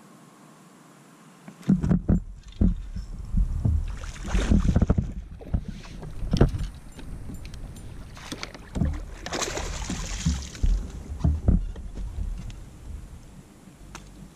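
Kayak on the water: irregular knocks and thumps against the hull with bursts of water splashing, starting about two seconds in.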